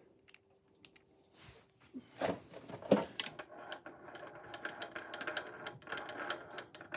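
Handling of a small metal-and-plastic bench vise and a wooden block: a couple of knocks a little after two seconds in, then a run of rapid small clicks and rattles.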